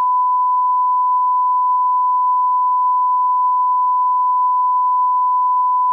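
Broadcast line-up test tone: a steady 1 kHz pure tone of the kind that plays with colour bars, loud and unchanging. It cuts off suddenly at the end.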